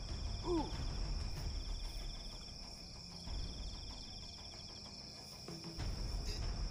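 Night insects: a steady high-pitched cricket chorus. A second insect trills in fast pulses in two stretches, over a low rumble, with a brief pitched chirp about half a second in.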